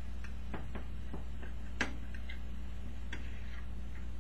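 Fork clicking and scraping against a skillet while stirring crumbled sausage and onions: a few irregular taps, the sharpest about two seconds in.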